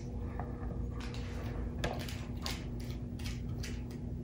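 A series of faint, irregular plastic clicks and scrapes as a phone holder is screwed onto the threaded mount of a small flexible-leg Fotopro tripod.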